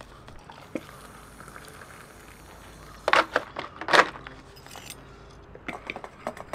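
Handling noise: scattered clicks and clinks of small hard objects, with two louder brief scuffs about three and four seconds in.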